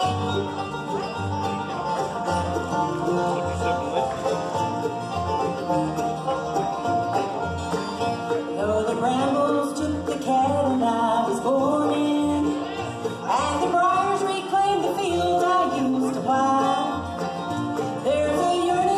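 Live bluegrass band playing: banjo, acoustic guitars, mandolin, dobro and upright bass, with the bass keeping a steady beat. A singer comes in about halfway through.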